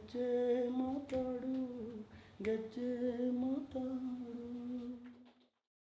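A singer holds long wordless notes, humming out the tune at the close of a Kannada folk song, with a few sharp beats among them. The singing fades and stops suddenly about five and a half seconds in.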